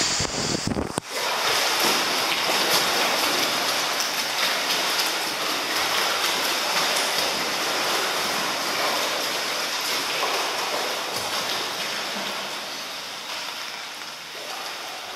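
Steady rushing and lapping of disturbed water in an indoor swimming pool, with a brief break about a second in and growing quieter near the end.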